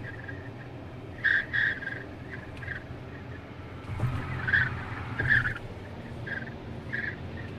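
Wind whistling at the passenger window of a Tesla Model X cruising at highway speed: a high whistle that comes in short bursts, about eight of them, over a steady low road and cabin rumble. The whistle is a wind-noise fault at the passenger window that needed a service visit.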